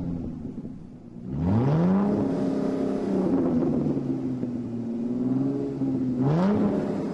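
Car engine revving: it climbs sharply about a second in, holds at high revs, and climbs again near the end.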